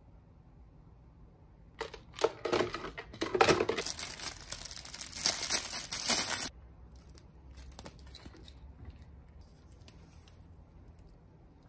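Clear plastic packaging crinkling and tearing as it is opened by hand, starting about two seconds in and stopping abruptly about four seconds later, followed by faint scattered rustles.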